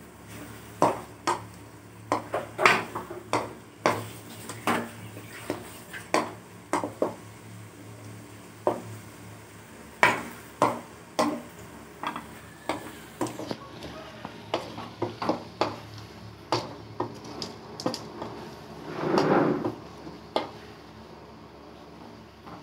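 Wooden spatula stirring in a metal kadai, knocking against the pot in a string of sharp clacks at irregular intervals, with one longer scrape near the end.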